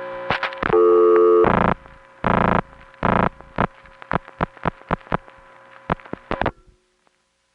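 Telephone line audio of a 1970s long-distance call being set up through electromechanical switching: a held chord of tones and a few short bursts of signalling tone, followed by a long run of relay clicks that stops suddenly about six and a half seconds in.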